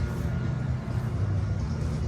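Classic car's engine running with a low, steady exhaust rumble.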